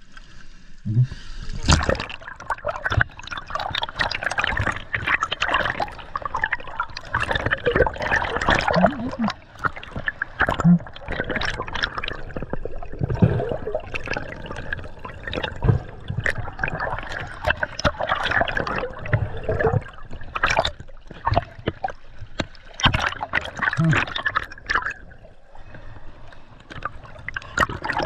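Water sloshing, gurgling and splashing in irregular bursts, with many sharp splashes.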